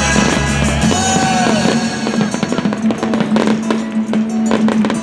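Loud music with a steady held bass note; from about two seconds in, fireworks crackle and pop rapidly over it.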